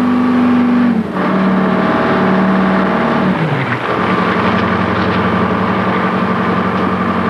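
Lobster boat's engine running under way. Its pitch drops a step about a second in, slides lower again about three and a half seconds in, then holds steady.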